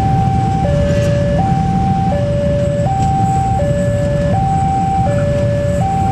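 Level-crossing warning alarm sounding a two-tone high-low signal, each note held about three-quarters of a second and repeating steadily, over a low rumble.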